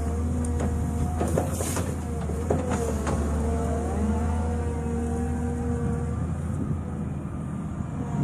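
Volvo EW160 wheeled excavator's diesel engine running steadily, with a hydraulic whine that rises and falls slightly as it works a mowing basket. A few sharp clicks and rasps from the cutting head come between about half a second and three seconds in.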